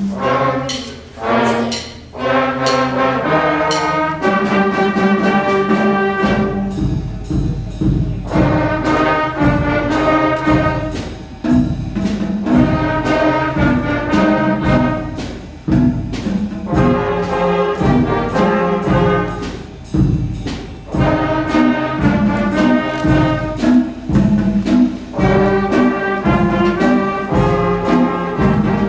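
Student band playing a bluesy piece: brass chords with trombones and trumpets, held at first, then over a steady drum beat that comes in about six seconds in, in repeated phrases of a few seconds each.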